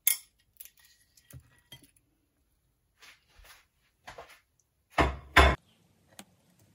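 Metal chopsticks clicking and tapping against a ceramic bowl of noodles and fried spam in a series of light clinks, with two louder knocks close together about five seconds in.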